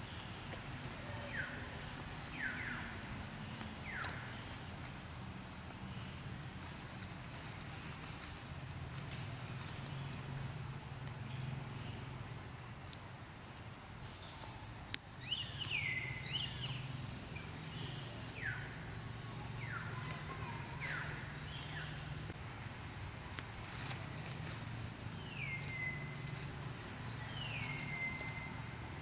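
Forest ambience: birds giving high calls that sweep downward, some ending in a held note near the end, over a steady high ticking about twice a second and a low hum. A single sharp click sounds about halfway through.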